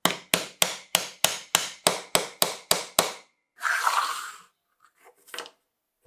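A hammer tapping a steel pin into a wooden knife-handle scale: about eleven sharp, even blows, roughly three a second, for about three seconds. A brief scraping sound and a few light knocks follow.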